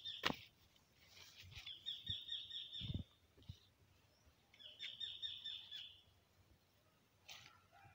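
A bird singing two fast trills of rapidly repeated high chirps, each lasting about a second and a half, a few seconds apart. A sharp click comes just after the start, and a few soft low thumps come in the middle.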